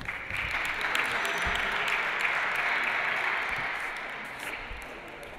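Spectators applauding, starting suddenly, staying strong for about three seconds, then dying away near the end.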